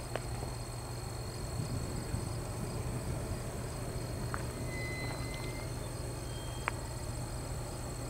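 Insects trilling steadily in dry grass, a high even tone, over a low steady hum. A few faint clicks and two short thin whistles come a little past halfway.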